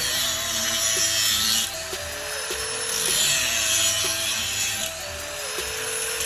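Background music with a repeating melody, over a power tool cutting metal seat-bracket steel in stretches of a second or two at a time.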